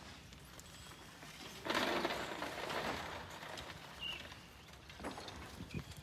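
A rushing, hissing noise starts about two seconds in, lasts a little over a second, then fades. A couple of short high chirps follow near the end.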